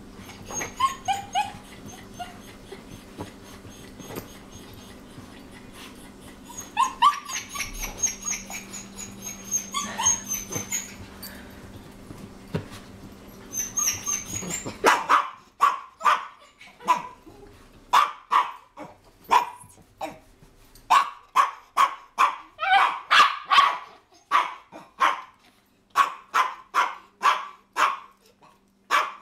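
A dog whining in high squeaky calls, then from about halfway a long run of short, sharp barks, about two a second.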